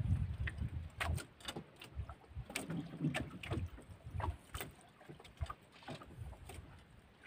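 Fishing handline being hauled in hand over hand over the side of a wooden boat: irregular knocks, rubs and low thuds of hands and line against the hull, loudest about the first second.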